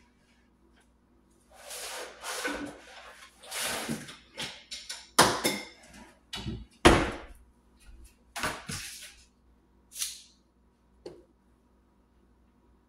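Kitchen drawer being rummaged through: plastic cutting mats and utensils rustling and clattering, with two sharp knocks about five and seven seconds in, the loudest of them.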